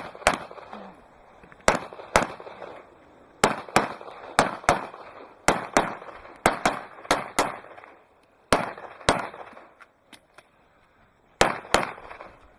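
Pistol shots fired rapidly during a practical shooting stage: about twenty sharp cracks, mostly in quick pairs and short strings, each with a short echo tail. A pause of about two seconds comes after the middle, broken only by faint clicks, before two more quick shots near the end.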